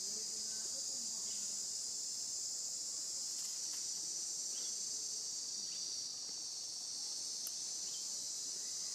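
Steady high-pitched insect chorus, a continuous shrill buzz that holds unchanged throughout.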